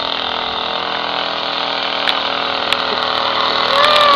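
Small moped engine running steadily as it is ridden along, growing louder as it comes closer.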